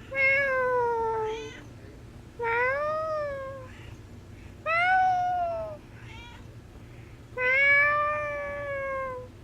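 A cat meowing four times, long drawn-out meows that rise and fall in pitch, about two seconds apart, with fainter short calls between them.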